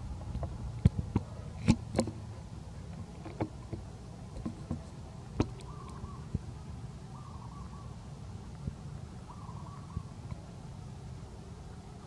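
A baby macaque biting and chewing a piece of fruit close up, heard as scattered sharp clicks and crunches, most of them in the first half. Faint short animal calls repeat about every two seconds in the background.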